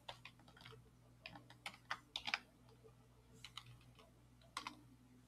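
Computer keyboard being typed on: faint scattered keystrokes in short runs with pauses between them, over a faint steady low hum.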